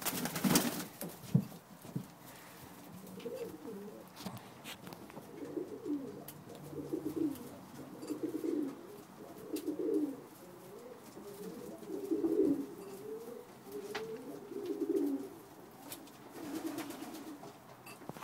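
Birmingham roller pigeons cooing: a string of low, warbling coos repeating every second or so. A short burst of rustling and knocks comes in the first second or so.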